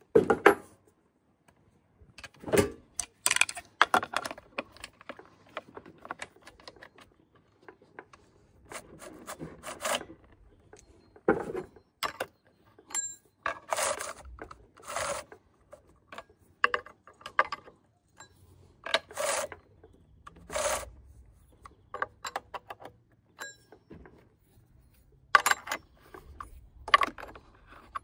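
Irregular clicks and rattles of metal and plastic as the bar and chain are fitted to a Stihl MS261C chainsaw and its clutch cover is put on. Near the end a combination wrench is set on the bar nuts.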